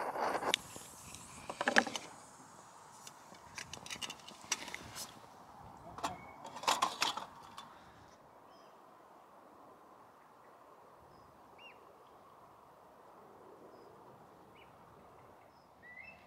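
Sharp scrapes and clatters in the first half, from a fire steel being struck into a small camp stove inside a folding aluminium windscreen and gear being handled on a wooden bench. Then quiet outdoor background with a few faint bird chirps.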